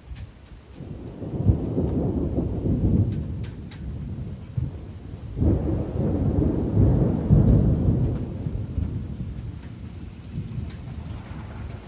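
Thunder rumbling in two long rolls, the first starting about a second in and the second about five seconds in, each swelling and fading, over a light steady hiss of rain.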